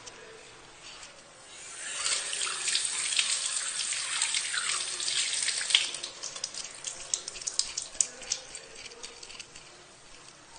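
Kitchen tap running as hands are rinsed under it, starting about two seconds in. After about four seconds the steady flow gives way to a run of short splashes and drips.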